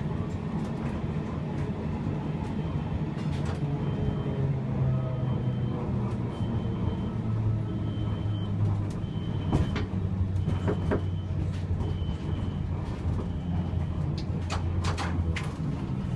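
Gotha T57 tram running, heard from the driver's cab: a steady low hum from the car under way, with sharp knocks from the wheels over rail joints and points. A short high tone repeats about once a second through the middle.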